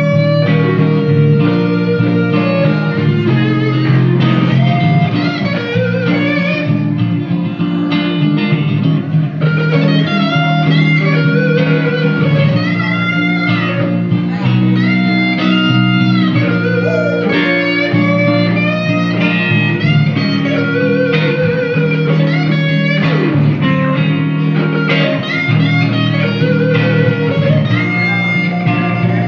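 Blues guitar solo on electric guitar, many notes bent up and down, over a steady guitar backing in a slow twelve-bar blues.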